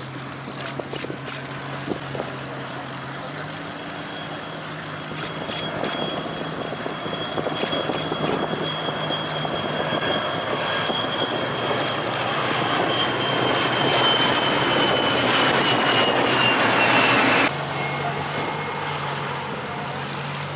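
Formation of piston-engined Second World War fighters flying past. The propeller and engine drone grows steadily louder while a high whine slowly falls in pitch as the aircraft pass. About three-quarters of the way through, the sound cuts off abruptly to a quieter, steady drone.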